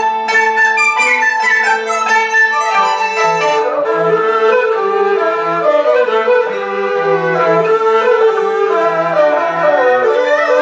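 Chinese traditional orchestra playing, with pipas, ruan and a yangqin among the instruments. For the first few seconds there are many quick plucked or struck notes. About four seconds in, the music shifts to smoother held melody lines, and quick struck notes come back near the end.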